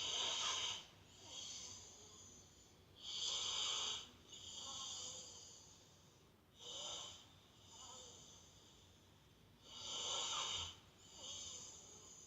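Breathy, hissy snoring: each cycle is a louder snore followed by a softer one, repeating about every three seconds, four times.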